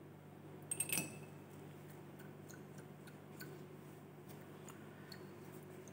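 A quick cluster of light glass clinks about a second in, a glass dropper knocking against the glassware of the reagent bottle or test tube, followed by scattered faint ticks of handling, over a low steady room hum.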